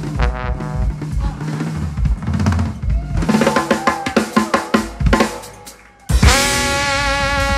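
Live jazz-fusion band of guitar, bass, keyboards, trombone and drum kit playing a drum-heavy passage with busy snare and bass-drum hits. The band cuts out for an instant about six seconds in, then comes back in loud on sustained chords with trombone.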